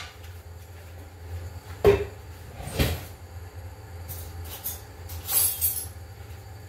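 Kitchen handling noise: two dull knocks about two and three seconds in, and a short rustle a little after five seconds, over a steady low hum.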